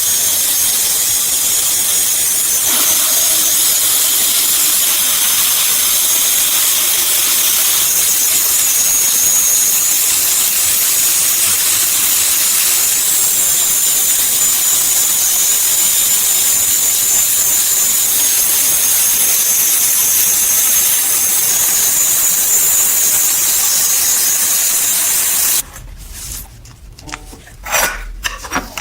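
A power tool running with a steady, loud hiss and a high whine that wavers slightly. It cuts off suddenly near the end, followed by a few light clicks and knocks.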